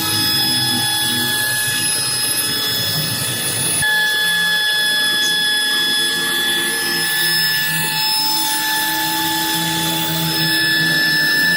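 CNC router spindle running with a steady high whine over shifting lower machine noise; the whine steps slightly in pitch about four seconds in.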